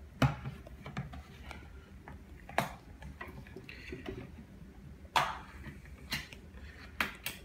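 About six sharp knocks and clicks, unevenly spaced a second or two apart, as things are handled on a kitchen counter.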